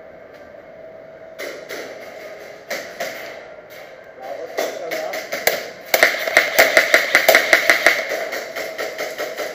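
Airsoft guns firing in close quarters: scattered single shots, then a rapid run of about six or seven shots a second from about six to eight seconds in, the loudest part.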